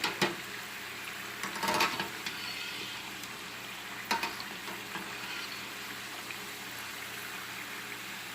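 Samosas frying in oil on low heat: a steady sizzle, with a utensil knocking and scraping in the pan as they are turned, just after the start, around two seconds in and about four seconds in.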